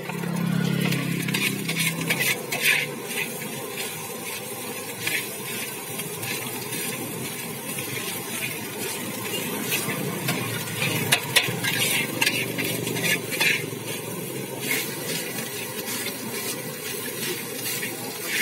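Fried rice and noodles sizzling in a large wok over high heat, with a metal spatula scraping and clanking against the wok at an irregular pace as the food is stir-fried.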